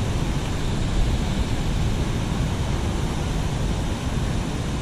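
Loud, steady rush of river water pouring through the dam's open floodgates, an even noise with no break.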